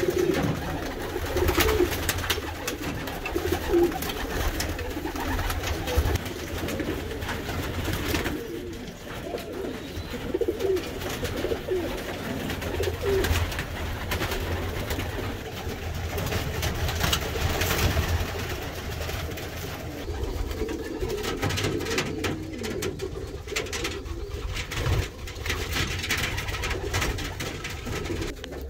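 Racing pigeons cooing, mostly in the first half, over a steady low rumble, with scattered short clicks and knocks.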